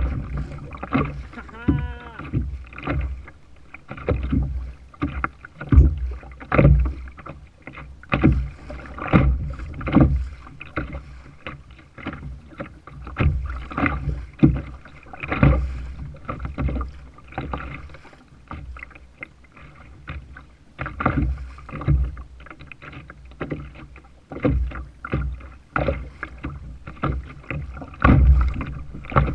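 Choppy water slapping against a kayak's hull in irregular splashes and knocks, over a steady low rumble of wind on the camera's microphone.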